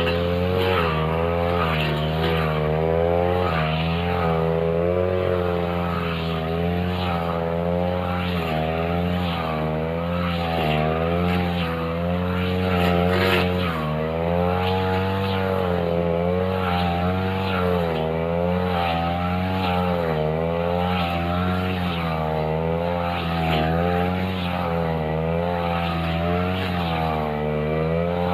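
Backpack two-stroke brush cutter with a metal blade running under load while cutting grass. Its engine pitch keeps rising and falling every second or two as the blade swings through the grass.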